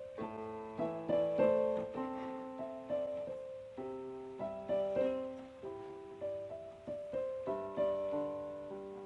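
Background music: a piano plays a gentle melody, single notes and chords struck one after another, each fading away.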